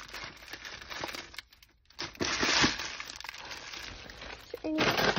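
Crinkling and rustling, like plastic wrappers or bags being handled, with a short quiet gap about a second and a half in and louder rustling after it.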